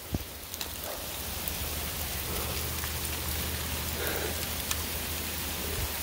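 Steady rain mixed with small hail pouring down, with a few sharp ticks of stones striking near the microphone.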